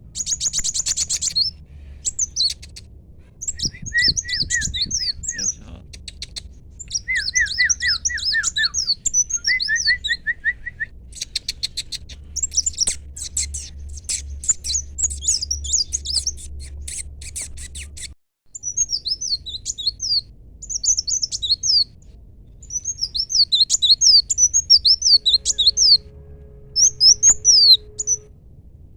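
A small songbird, which the uploader calls a koliday kowul, singing in fast, high twittering phrases of quick sweeping chirps and trills, broken by short pauses. A low steady hum runs underneath, and two short steady tones sound near the end.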